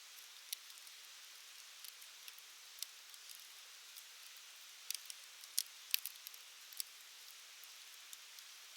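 Wood campfire crackling: irregular sharp pops and snaps over a soft hiss, with a cluster of louder pops about five to seven seconds in.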